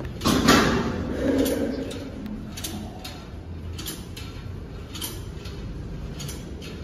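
Weight-stack shoulder press machine working through reps, its plates and handles clanking and sliding. The loudest moment is about half a second in, with light clicks scattered through the rest.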